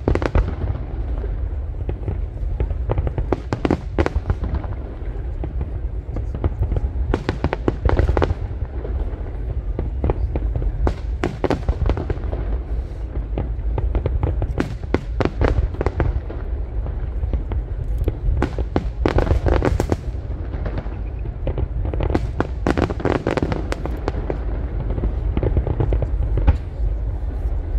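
Aerial fireworks display bursting in rapid, dense volleys: sharp bangs and crackles come one after another in clusters, over a continuous low rumble.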